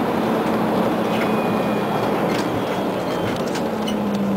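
Scania CN94UA OmniCity articulated city bus heard from inside the passenger cabin while driving: a steady engine hum and road rumble, with a few light rattles and clicks from the body about halfway through.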